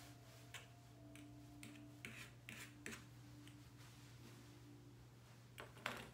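Faint, scattered snips of grooming scissors cutting hair, over a low steady hum.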